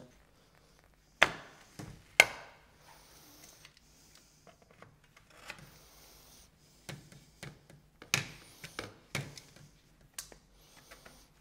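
Clicks and knocks of white blind-frame parts as the corners of the bottom rail are slid and pushed onto the side rails, with light rubbing between. The two loudest knocks come about one and two seconds in, and a few more clicks come near the end.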